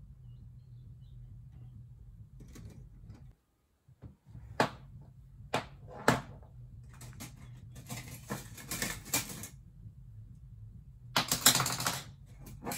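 A scatter of small, sharp clicks and taps: a few single ones, then quick rattling runs of clicks twice near the middle and the end, over a low steady hum.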